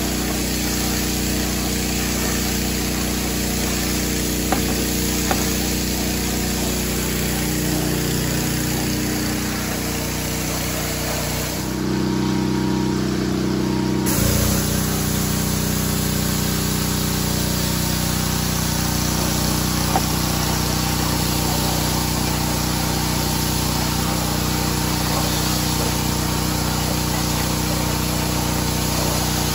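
Pressure washer running steadily, its motor humming under the hiss of water sprayed from an undercarriage-cleaner attachment against a mower deck and wet pavement. About twelve seconds in, the spray hiss drops away for about two seconds while the motor keeps running, then comes back.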